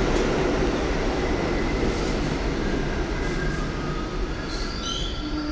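New York City subway train running: a steady loud rumble and hiss, with thin high wheel squeals that grow stronger near the end.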